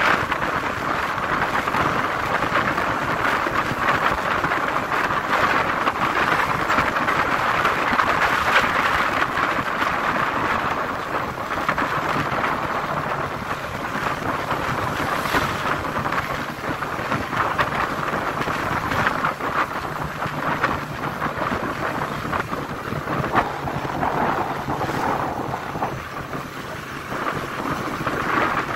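Wind rushing and buffeting over the microphone of a motorcycle riding at highway speed, with the bike's engine running steadily underneath.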